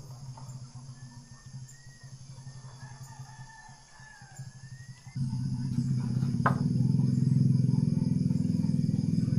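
A faint, high wavering call over quiet outdoor background, like a distant bird. About five seconds in, a loud steady low hum cuts in abruptly and holds, with one sharp click a second later.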